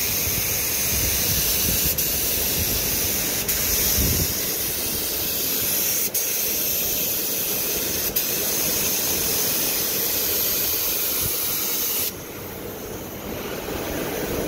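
Gravity-feed spray gun hissing steadily as it sprays a primer coat onto the trunk lid, with a few momentary dips. The spray cuts off about twelve seconds in, leaving a fainter hiss.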